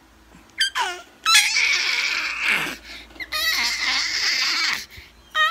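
Baby squealing: two long high-pitched squeals, with a short one before them and another starting near the end.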